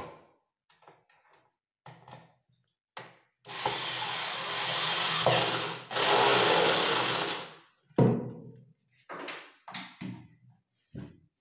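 Corded electric drill running under load into the cabinet's wooden frame in two bursts of about two seconds each, with a brief pause between them. Short knocks and clicks come before and after.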